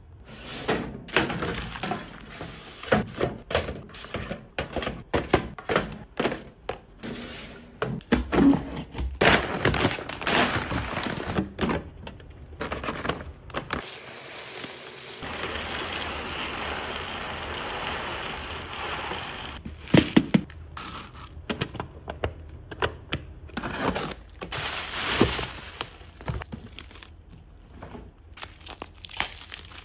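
Cardboard boxes and packets handled and set down, giving a run of knocks, taps and plastic crinkling. About halfway through comes several seconds of steady rattling as dry pet kibble is poured from a bag into a plastic storage bin.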